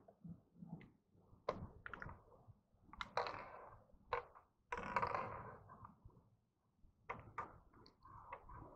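Faint scattered knocks, clicks and rustling, with two brief louder rushes of noise about three seconds and five seconds in.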